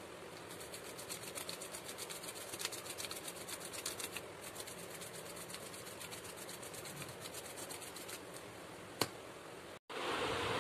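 Faint fast scratching, several short strokes a second, with one sharp click near the end.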